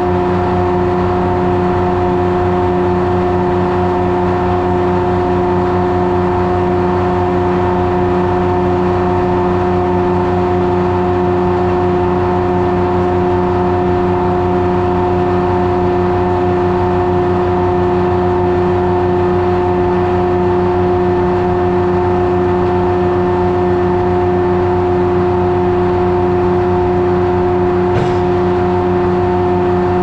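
1953 Detroit Diesel 3-71 two-stroke three-cylinder diesel power unit running at a steady, unchanging speed. There is one short click about two seconds before the end.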